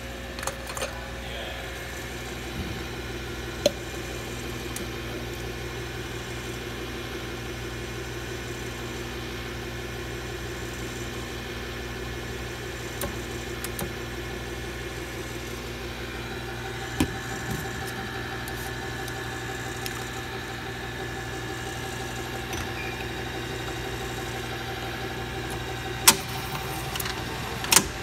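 Steady mechanical hum of running machinery, with a few sharp metallic clicks and clinks from handling aluminium cans and canning equipment, the loudest ones near the end.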